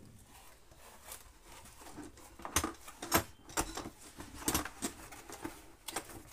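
Hands handling a hard plastic tool case and its metal latches: a handful of short sharp clicks and knocks, the loudest a little past the middle.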